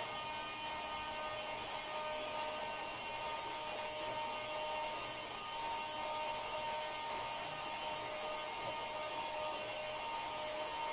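A steady electrical hum with a few faint constant tones, unchanging throughout.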